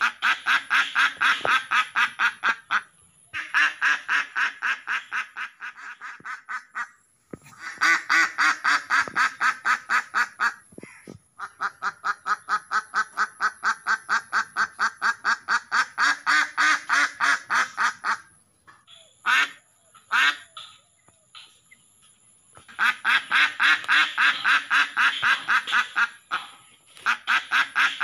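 Ducks quacking in long runs of rapid quacks, about five a second, broken by short pauses, with only a few scattered calls for a while about two-thirds of the way through.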